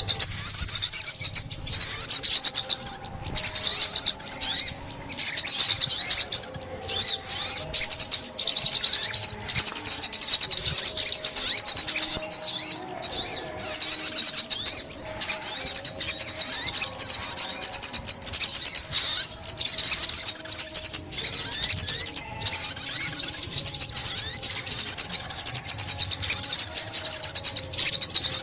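Sunbird (ốc mít) singing a rapid, high-pitched twittering song that runs almost without a break, stopping only for a few short pauses.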